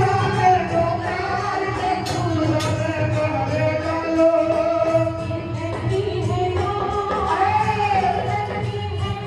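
Music with singing: sustained sung voices over an accompaniment with percussion strokes.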